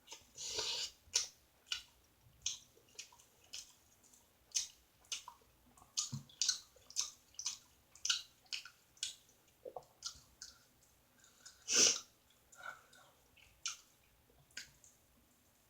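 Close-miked wet chewing and lip-smacking of someone eating: irregular short, crackly smacks, a few a second, with a louder burst just after the start and another about twelve seconds in.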